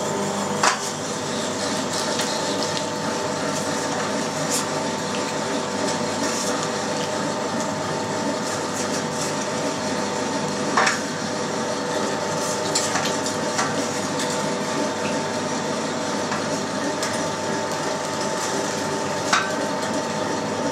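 Electric meat grinder with an 8 mm plate running with a steady motor hum while it minces lean pork. A few sharp knocks come through, about a second in, halfway through and near the end.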